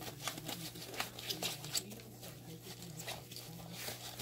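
Cocker spaniel puppies stirring in dry cedar-chip bedding: a crackly rustle of wood shavings with many quick clicks, busiest in the first two seconds, over a low steady hum.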